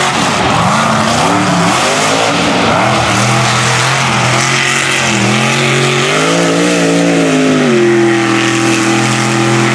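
Mega truck's engine running hard under throttle on a dirt course. The pitch climbs and drops several times as it accelerates and lets off, then holds steady near the end, over a constant hiss of tyres and thrown dirt.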